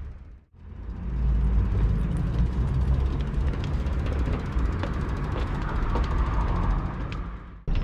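Street noise with a heavy low rumble, typical of traffic and wind on the microphone while riding, with scattered small clicks; it cuts out sharply twice.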